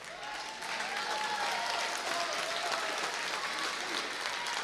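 Crowd applauding and cheering, with voices shouting over the clapping.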